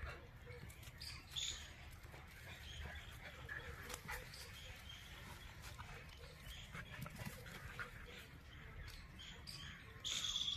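A mother dog and her puppy play-fighting, with faint short high yelps and squeaks scattered through. A louder high squeal comes near the end.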